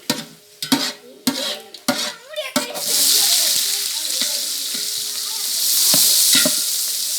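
Cooking pan on the fire: a few sharp clicks and knocks at first, then, a little under three seconds in, a loud sizzle starts suddenly as something goes into the hot oil, frying steadily after that.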